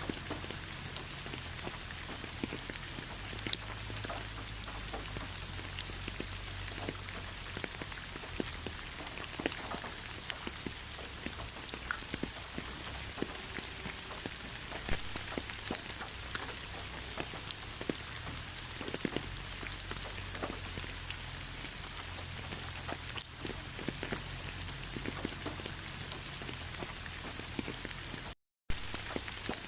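Steady rain falling, with many individual drops pattering and clicking over the hiss. It cuts out completely for a moment near the end.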